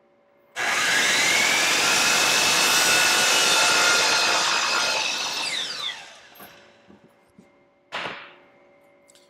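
DeWalt miter saw starting up and running at full speed while making a miter cut through a pine board, then spinning down with a falling whine about five seconds in. A short knock follows near the end.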